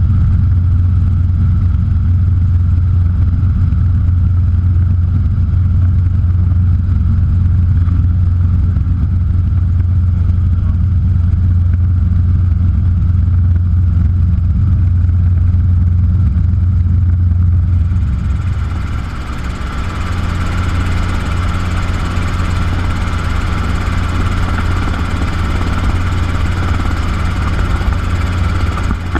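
Robinson R-22 helicopter in flight, its four-cylinder Lycoming engine and rotor making a steady loud drone heard from inside the cockpit. About 18 seconds in the sound changes: the deep drone lessens and a brighter hiss with a steady whine comes in.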